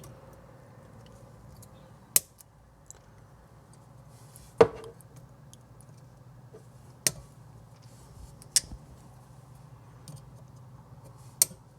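Flush cutters snipping the excess leads of a freshly soldered bicolor LED: about five sharp snips a couple of seconds apart, the loudest near the middle.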